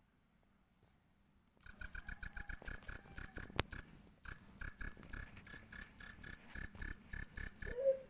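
Cricket chirping loudly in a fast, even series of about five high-pitched chirps a second. It starts about a second and a half in and breaks off briefly midway.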